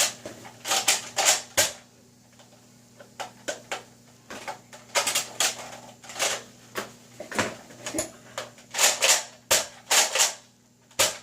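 Nerf Tri-Strike blaster being handled and worked: a series of irregular sharp plastic clicks and clacks, coming in clusters with short pauses between.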